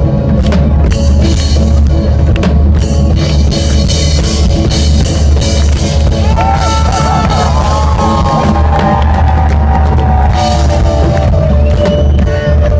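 Rock music with a drum kit and bass, a lead line bending and wavering in pitch from about halfway through.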